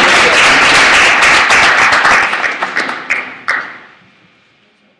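Audience applauding: dense clapping that thins to a few last separate claps about three seconds in, then dies away.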